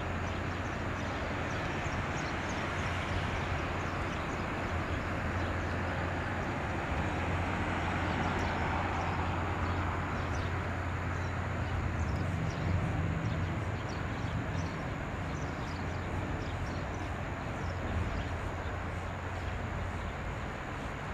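Hayanami-class patrol craft running past on the water: a steady low engine drone over the rushing wash of its bow wave and wake.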